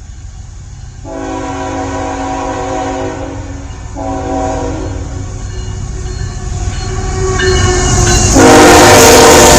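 CN freight locomotive's multi-tone air horn blowing the grade-crossing signal, two long blasts, a short one and a final long one, over the rumble of the approaching train. The horn and train get steadily louder, and the last blast is loudest as the locomotive reaches the crossing.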